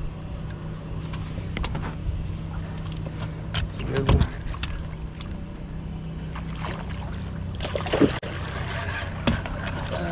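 Spinning reel being cranked with a steady mechanical whir for the first few seconds, then water splashing as a big sheepshead is scooped into a rubber landing net, with a few knocks against the boat.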